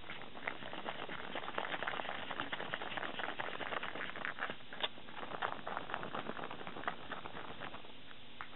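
Natto being whipped with wooden chopsticks in its foam tray: a rapid, sticky crackling and clicking of the stringy beans and chopstick tips, thinning out near the end.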